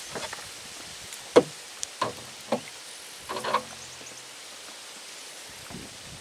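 Several sharp knocks and a short clatter of fishing gear being handled on a small boat, over a steady background hiss. The loudest knock comes about one and a half seconds in, and the clatter follows a couple of seconds later.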